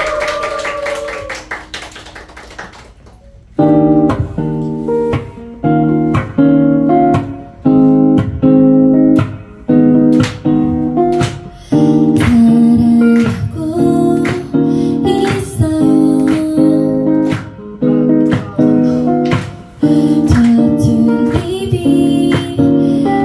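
The last of the audience applause dies away, then an acoustic guitar starts strumming chords in a steady rhythm about three and a half seconds in: the intro of a live song.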